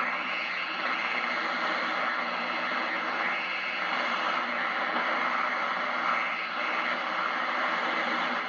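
Steady AM radio static and hiss from an antique 1938 Knight tube radio, tuned between stations with no station coming through clearly.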